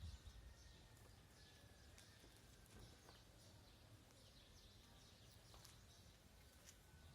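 Near silence: faint outdoor background with scattered faint, high, short chirps.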